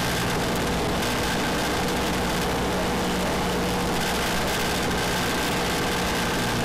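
Single-engine Cessna trainer's piston engine and propeller running steadily on approach, heard inside the cabin as an even, loud noise.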